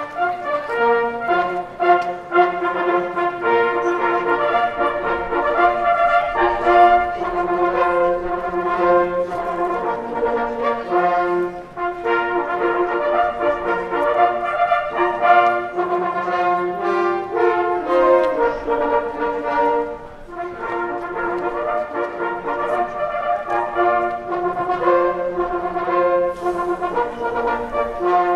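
Hunting horn ensemble playing a piece in held, several-part chords, with short breaks between phrases about 12 and 20 seconds in.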